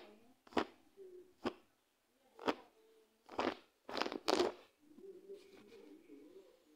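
Rubber balloon being squeezed and rubbed against tree bark by a monkey: a string of sharp crackles and taps, about seven in the first four and a half seconds, the last few coming closer together, then a faint murmur.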